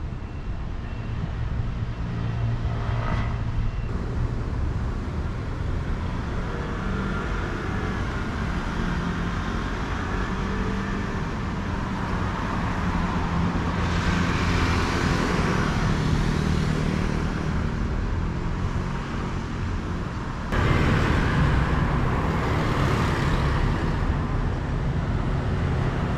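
City street traffic: a steady low rumble of road vehicles, with a vehicle passing about halfway through. The traffic steps up suddenly louder about three quarters of the way through.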